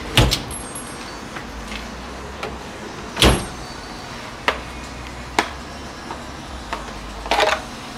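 Scattered knocks and clinks of tools and bike frame parts being handled during assembly, about half a dozen separate hits, the loudest a little over three seconds in and a quick cluster near the end.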